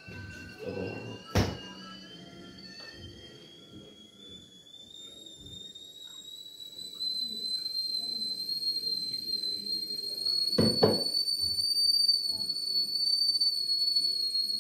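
A steady high whistle that climbs slowly in pitch. About a second and a half in there is a single thunk as the refrigerator door shuts, and near eleven seconds a quick double knock.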